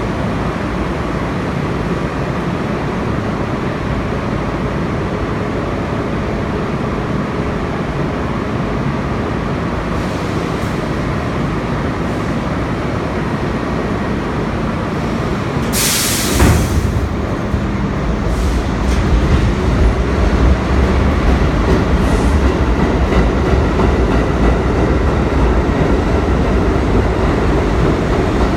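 An R32 subway train stands in the station with a steady hum and rumble. About halfway through there is a short, loud hiss of air, and after it a deeper low rumble builds as the train starts to move.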